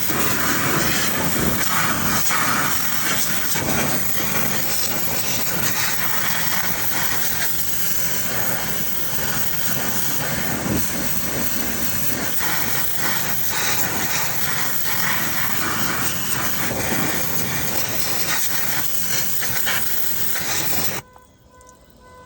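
Pressure washer spraying a steady hissing jet of water into a car's engine bay, cutting off suddenly about a second before the end.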